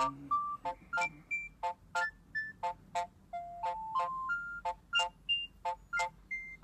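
Bird S1150 mobile phone ringtone playing: an electronic melody of short notes stepping up and down over a beeping chord pulse, about three beats a second.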